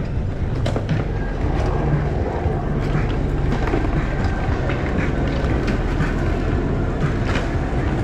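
Outdoor ambience of a busy seaside promenade: a steady low rumble with faint scattered voices and occasional sharp clicks and taps.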